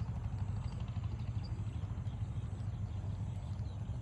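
Engine idling with a low, steady rumble.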